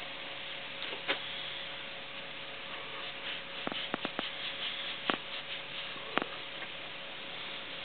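Cloth rag rubbing and rustling softly between hands as a small part is wiped dry, with a few faint sharp clicks scattered through, over a steady faint hum.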